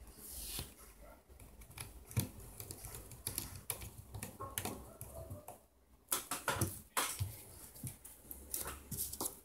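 Irregular small clicks and taps of a small screwdriver and plastic phone parts being handled as a smartphone is taken apart, with a cluster of louder clicks about six to seven seconds in.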